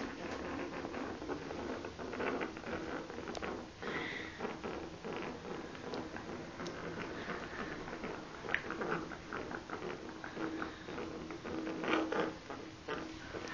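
Pet rats moving about in a bubble bath: irregular small taps, scrabbles and splashes.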